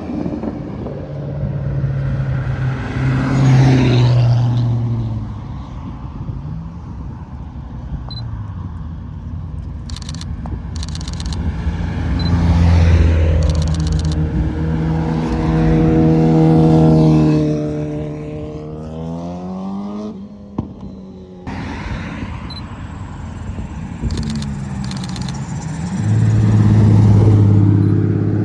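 Car engines running and revving, their pitch climbing and falling as the cars accelerate, with a short drop in sound about two-thirds of the way through.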